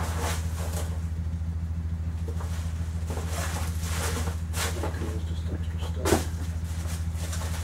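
Paper shipping mailer and bubble wrap rustling and crinkling in several short strokes as a bubble-wrapped item is pulled out, the sharpest about six seconds in. A steady low hum runs underneath.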